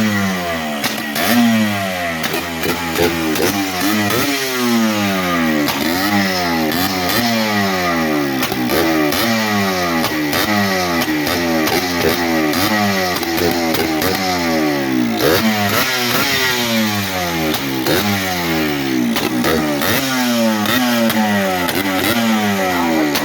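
Yamaha Blaster's two-stroke single-cylinder engine running on its first start after a top-end rebuild. The throttle is blipped over and over, so the revs jump and then fall back about once a second. It runs loud without its airbox.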